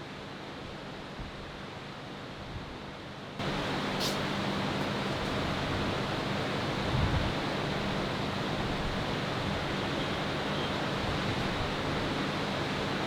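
Steady noise of sea surf and wind at the shore, stepping abruptly louder a little over three seconds in.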